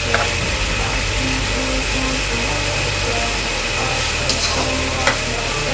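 Instrumental background music with a steady low bass line. Under it, raw pork belly frying in a nonstick wok gives a steady sizzle, and a metal spoon clicks against the pan a few times as the meat is stirred.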